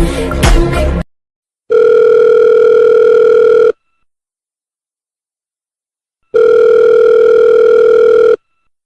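Telephone ringback tone heard by the caller: two steady rings about two seconds long each, a few seconds apart, as the call goes unanswered so far. Music before it cuts off suddenly about a second in.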